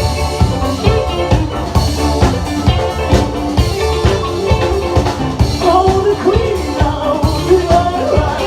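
Live rock band playing: a drum kit beating steadily over bass and guitar, with a wavering melodic lead line coming in about halfway.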